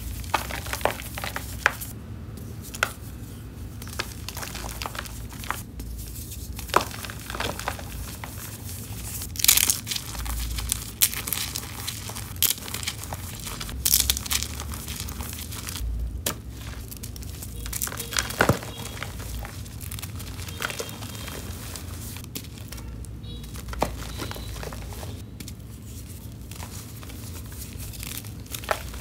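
Hands crushing reformed chalk blocks and eggshells into powder, making irregular crunches and sharp crackles with soft powdery rustling in between.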